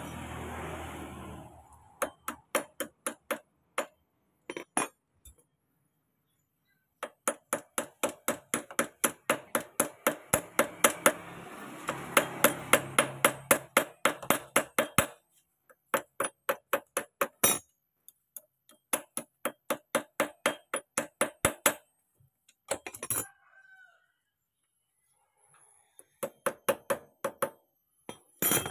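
Socket ratchet clicking in quick, even runs of about six or seven clicks a second, stopping and starting again several times, as the fastening bolts of a motorcycle's new front sprocket are turned. A longer sustained sound sits behind the clicks around the middle.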